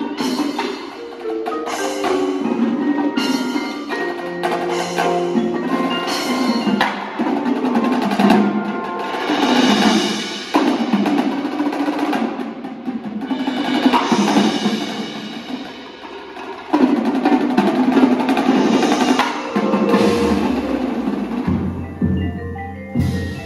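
Indoor percussion ensemble playing: marimbas and other keyboard mallet instruments in quick pitched runs, together with a marching drum line of snare drums, tenor drums and bass drums. A run of low notes comes in near the end.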